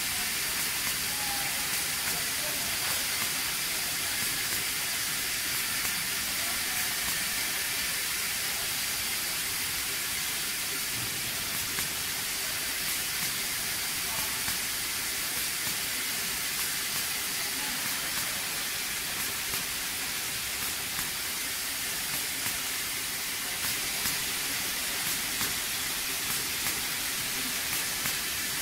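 Steady hiss of a robotic car-body assembly cell, with a faint machinery hum and scattered faint clicks.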